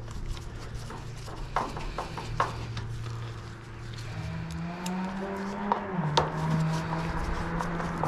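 Hand screwdriver working Phillips screws into the sheet-metal side of a microwave case: small clicks and scrapes of metal on metal. Under them runs a steady low hum that steps up in pitch about halfway through.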